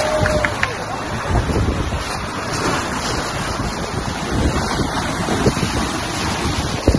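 Wind buffeting the microphone over the rush and splash of sea water at the bow of a sailing catamaran under way.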